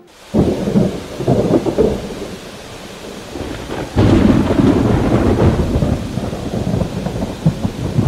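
Thunderstorm: rain with thunder breaking in suddenly just after the start, easing off, then a second, louder peal of thunder about four seconds in.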